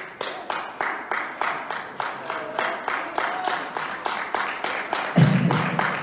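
Hands clapping in a fast, steady rhythm, about four to five claps a second, with a voice breaking in about five seconds in.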